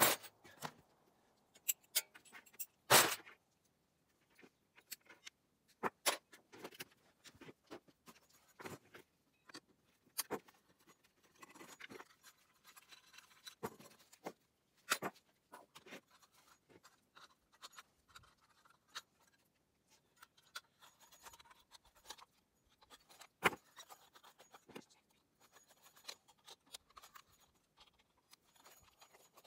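Table lamp parts being taken apart by hand for scrap: scattered clicks, clinks and scrapes of small metal and glass pieces, with one louder knock about three seconds in.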